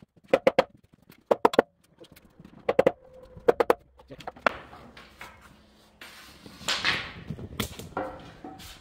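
Hammer tapping on a block of wood set against a cart wheel, in quick groups of three or four blows, to nudge the engine cart's wheels sideways. This is followed by a few seconds of shuffling and scraping.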